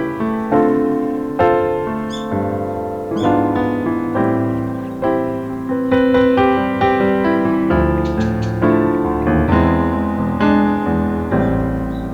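Background piano music: struck chords and melody notes that ring and fade, in an even, gentle rhythm.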